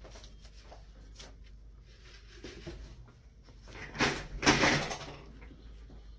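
Office swivel chair being grabbed and moved, with a loud rattling knock and scrape about four seconds in, after a few light clicks and handling noises.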